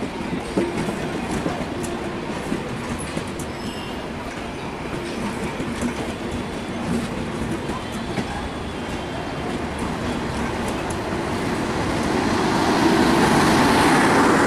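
Nilsagor Express intercity passenger coaches rolling past close by, a steady rumble of wheels on rails with scattered clicks. Over the last few seconds the sound grows louder as the train's generator power car draws alongside.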